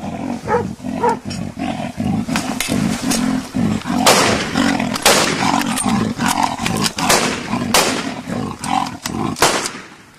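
Leopard growling and snarling in quick pulses as it charges, with dogs barking. From about four seconds in come several loud, sharp cracks of rifle shots.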